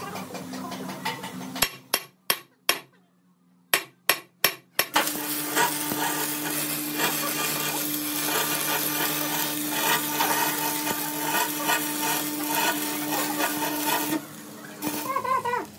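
A hammer striking steel, eight sharp blows in two quick groups of four, then a steady machine noise with a low hum for about nine seconds that stops near the end.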